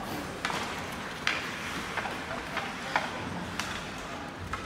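Ice hockey play: about seven sharp knocks of sticks and puck on the ice over a steady background noise, the loudest a little over a second in and near three seconds.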